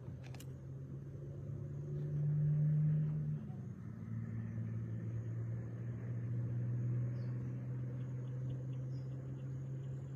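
A distant engine running steadily, its pitch rising briefly about two seconds in and then settling back, with faint insect ticking near the end.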